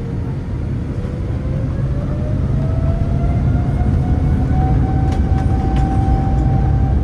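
Boeing 787-8 jet engines spooling up, heard from inside the cabin: a whine rises in pitch over the first few seconds and then holds steady over a heavy rumble that keeps growing louder.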